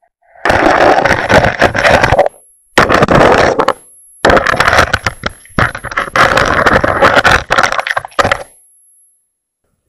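Loud crackling and clicking from an underwater camera's microphone inside its waterproof housing, water and grit knocking on the case, in three stretches with short gaps, stopping about eight and a half seconds in. A thin high electronic whine runs under it.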